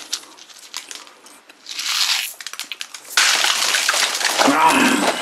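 A small cardboard candy box being handled and opened, with scattered clicks and a short rustle, then a dense, louder crinkling and clattering from about three seconds in as a hand rummages through a pile of plastic-wrapped candies.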